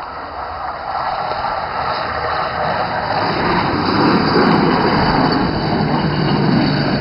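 Hi-rail pickup truck running along the railroad track, its engine and rail wheels growing louder as it approaches, with a steady low engine hum from about halfway through.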